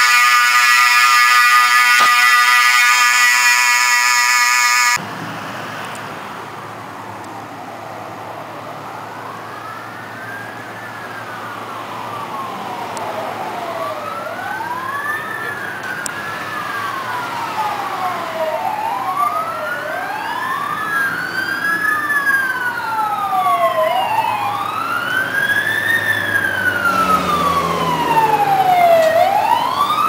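Building fire alarm sounding, a loud steady harsh tone that stops abruptly about five seconds in. Then the wailing sirens of fire trucks answering the alarm, two or more overlapping, rising and falling and growing louder as they approach.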